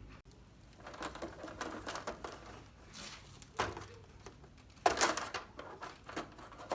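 Light plastic clicks and rattles as a flat-screen TV's plastic panel frame is unclipped and lifted off, with a sharper knock about five seconds in.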